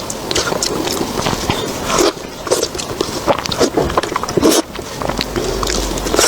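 Close-miked eating sounds: a person biting and chewing food, with many quick crunching clicks.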